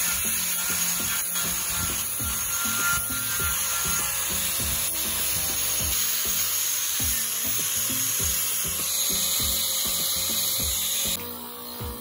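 Angle grinder with a red abrasive disc running against metal, sanding the steel oil pan and then the aluminium valve cover of an old engine: a steady, high grinding hiss. It cuts off sharply about eleven seconds in.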